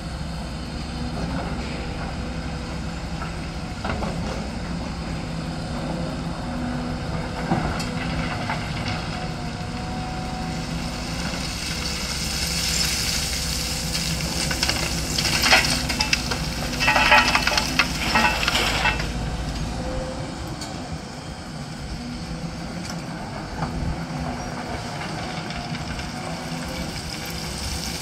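Sany crawler excavator's diesel engine running steadily as it works. About halfway through, a load of earth and stones pours from the bucket into a tipper truck's body for several seconds, a loud rush with many knocks.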